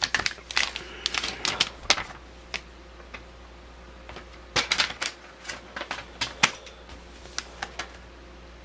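Hands handling plastic bags of LEGO pieces and their packaging, making an irregular run of sharp clicks and crinkles. The sounds come in two clusters: one at the start, and another from about halfway through to near the end.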